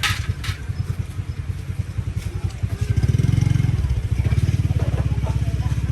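Engine running with an even low pulsing beat, revving up briefly about three seconds in, then settling back. A short clatter sounds right at the start.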